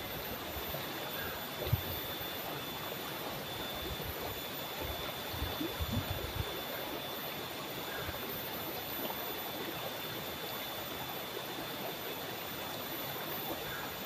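Shallow river flowing over stones, a steady rush of running water with a few low gurgles, one near the start and a small cluster around the middle.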